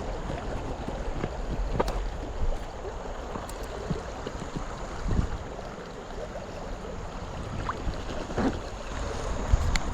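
Creek water running steadily, with a few short knocks scattered through it.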